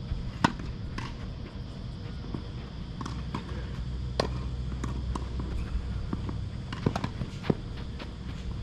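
Tennis balls struck by racquets and bouncing on the court during a doubles rally: a series of sharp pops, the loudest about half a second in, with more around four seconds and a quick pair near seven seconds.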